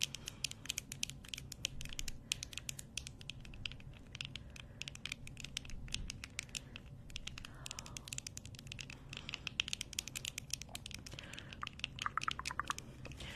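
Long acrylic fingernails tapping and clicking rapidly and irregularly, close to the microphone.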